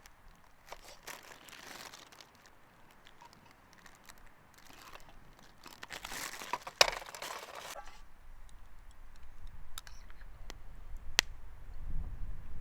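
Irregular rustling and crinkling, like material being handled, with a few sharp ticks.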